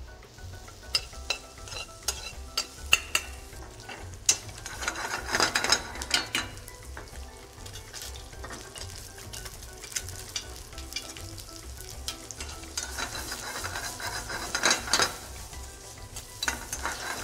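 Diced tomato and cucumber sizzling in a hot pan, stirred with a metal spoon and tossed. Sharp clicks of the spoon against the pan come in the first few seconds, then louder surges of sizzle about five seconds in and again near the end. Sea bass fillets fry in oil in a second pan alongside, adding a steady frying hiss.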